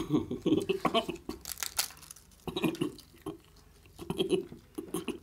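Crisp papad crackling and snapping in irregular bursts as it is broken apart by hand and crunched.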